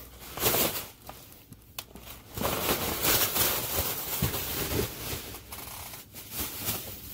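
Thin plastic shopping bag rustling as it is handled and shoes are dug out of it: a short rustle near the start, then continuous handling from about two and a half seconds in.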